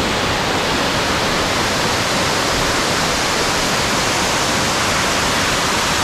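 Boksungatang (Yongtang Falls) in Seoraksan, a large waterfall plunging into a deep rock pool, making a steady, even rush of falling water.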